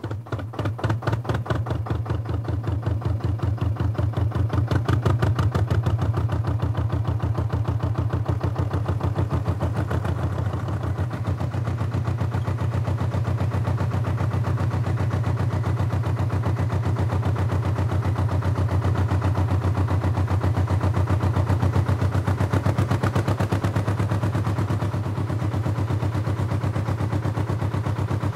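Engine running steadily, its firing heard as a rapid, even beat of about ten pulses a second with a strong low hum.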